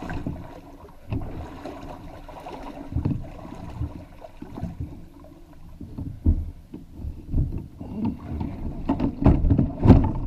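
Irregular thumps and knocks of a canoe being carried overhead on a portage, its hull and yoke shifting with each step. The knocks come louder and closer together near the end as the canoe is lowered into the water.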